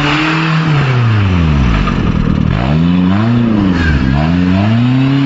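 Off-road 4x4's engine revving under throttle. The revs drop sharply and climb back twice.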